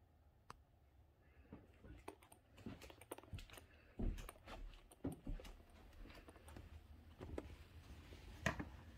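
Quiet indoor room tone with scattered soft clicks and thumps of a handheld camera being moved and footsteps on carpet. The sharpest knock comes near the end.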